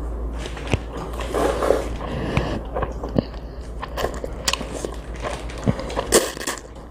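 Close-miked eating sounds of a child eating jjolmyeon noodles: wet chewing with scattered small clicks and smacks.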